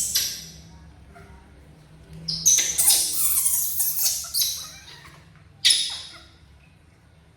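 Baby monkey shrieking in harsh bursts: a long run of cries lasting about two seconds and a short, sharp one a little later.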